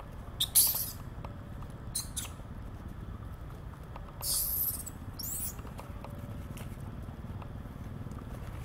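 Baby macaque giving short, very high-pitched squeaks four times: about half a second in, around two seconds, and twice between four and five and a half seconds, the last one gliding in pitch. A low steady background rumble runs underneath.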